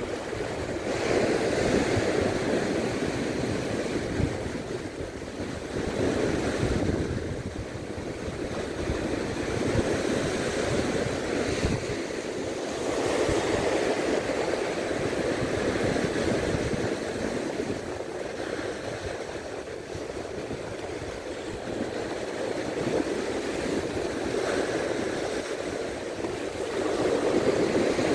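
Small sea waves washing in and breaking on the shore, the wash swelling and fading every few seconds.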